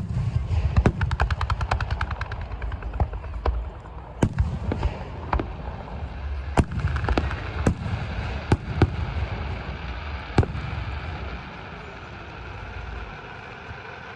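Aerial fireworks going off: a quick volley of crackling bangs, then single loud shell bursts about a second apart over a low rolling rumble that fades out near the end.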